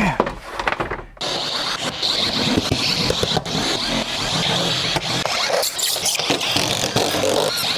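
Cordless drill running almost without pause from about a second in, backing screws out of corrugated steel roofing panels, after a few scrapes and knocks at the start.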